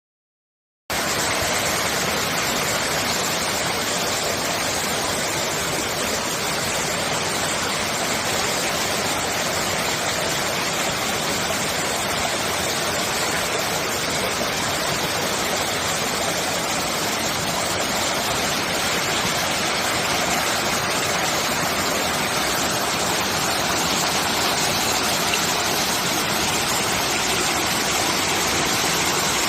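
Clear mountain valley stream rushing steadily over rocks, cutting in suddenly about a second in.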